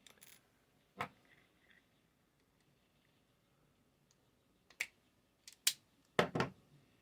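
A few sharp clicks and knocks from small objects being handled and set down on a work surface, with a louder double knock near the end.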